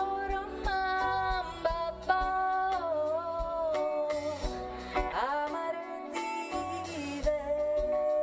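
Live band music: a woman sings long held notes, sliding up into some of them, over strummed acoustic guitar and bass guitar.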